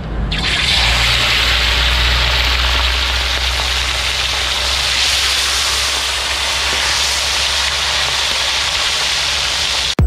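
Steady, loud rushing of wind and water over an even low rumble.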